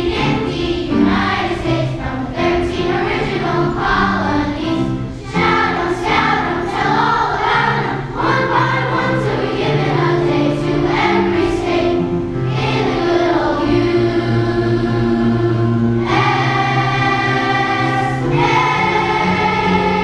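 Children's choir singing a song in unison; in the last few seconds the voices hold long notes.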